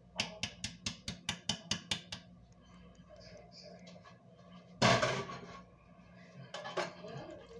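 A stainless steel colander knocked against the rim of a stainless steel hotel pan in a rapid run of metallic knocks lasting about two seconds, shaking out cooked rice. A single louder clatter follows about five seconds in, and a couple more knocks come near the end.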